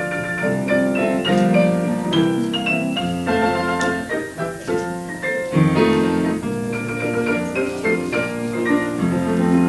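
Instrumental keyboard music: a melody of separate held notes over a bass line that steps to new notes every few seconds.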